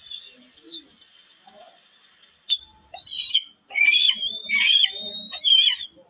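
High-pitched eagle calls: a thin gliding whistle at the start, then, after a single sharp click, a run of shrill chittering calls with wavering, gliding notes over the last three seconds.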